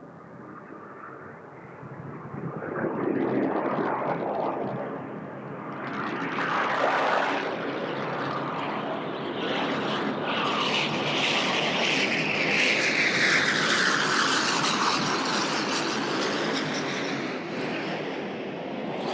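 Boeing 737-800 jet on landing approach, its CFM56-7B turbofans growing louder as it nears and passes close by. The engine whine falls steadily in pitch as the airliner goes past.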